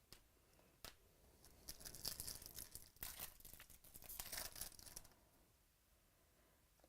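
Faint crinkling and rustling of trading-card pack wrappers and cards being handled, with two light clicks in the first second.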